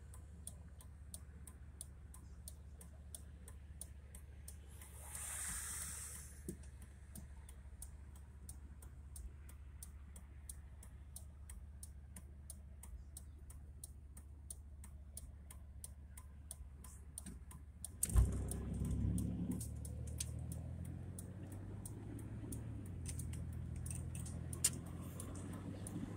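Car engine idling low with a turn-signal relay ticking evenly and fast while the vehicle waits at a red light. About eighteen seconds in there is a thump and the engine note rises as the vehicle pulls away and drives on.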